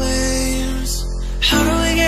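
A music track: held chords over a steady deep bass, with a new chord coming in about one and a half seconds in.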